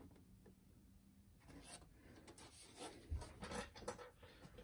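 Near silence with faint handling noise: a plastic boombox case being held, rubbed and shifted, with a soft low knock about three seconds in.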